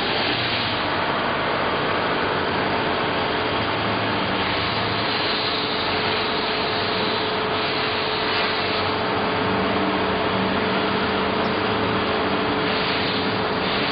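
Straight knife grinder at work: its motor-driven cup grinding wheel wet-grinds a straight blade under coolant, a steady mechanical whir with a hissing grind that swells now and then, over a constant hum.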